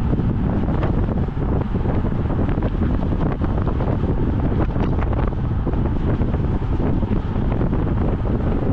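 Steady wind noise rushing over a racing road bicycle's camera microphone at about 55 km/h.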